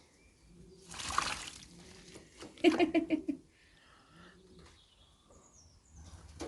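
Racing pigeons at a water bath: a splash of water about a second in, then pigeon cooing in short repeated notes around the middle.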